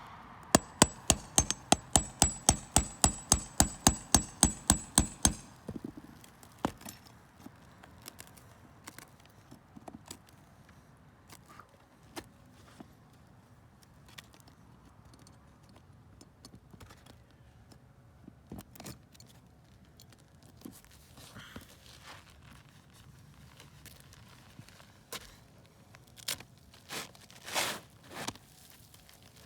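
A rapid run of about eighteen sharp, ringing strikes, about four a second, stops after five seconds. Sporadic knocks and scrapes of the shingle-removal work follow, with a few louder ones near the end.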